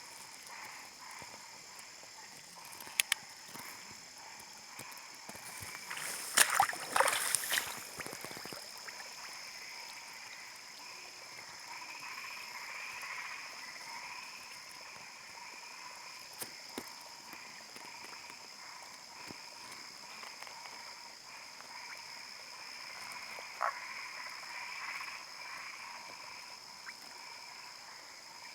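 Frogs croaking in a steady chorus, with a louder burst of rapid, pulsing calls about six to eight seconds in.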